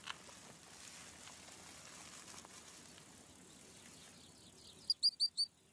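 Natural outdoor ambience: a faint, steady hiss. Near the end come four quick, high chirps in a row.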